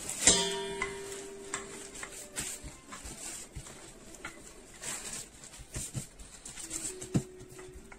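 Wooden rolling pin rolling out pastry dough on a plastic food bag: soft knocks, rubbing and crinkling of the plastic as the pin is worked and the dough pressed by hand. A sharp knock with a brief ringing tone comes just after the start.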